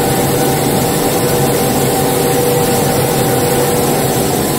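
BOPP tape coating machine running: a steady mechanical hum with two steady whining tones held throughout.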